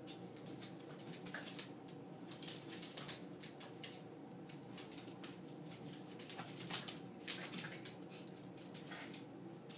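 Two small dogs play-fighting on a hardwood floor: irregular quick clicks and scrabbling of their claws on the boards, with one sharper knock about two-thirds of the way through.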